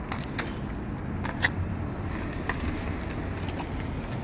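Steady low rumble of a vehicle engine running, with a few light clicks: a pair near the start, the sharpest at about a second and a half, and another at about two and a half seconds.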